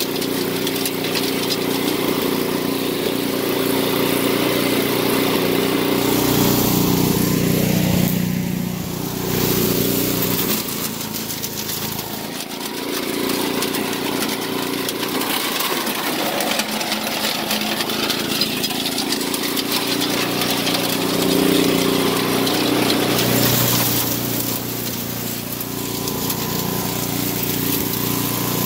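Mighty Mac wood chipper's 7 hp Briggs & Stratton single-cylinder engine running hard under load, its note and loudness rising and falling several times as it works. It is running strongly on a freshly rebuilt carburetor.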